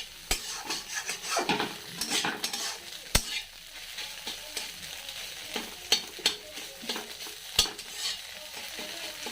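Eggs scrambling in hot oil in a kadai: a steady sizzle, with a spatula stirring and scraping the pan. Sharp knocks of the spatula against the pan come now and then, the loudest about three seconds in and again near the end.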